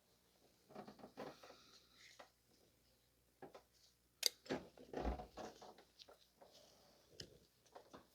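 Faint handling noises of hands working at wiring connectors and tester leads in an engine bay: scattered light clicks and rustles, with a sharper click about four seconds in and a short cluster of louder knocks just after.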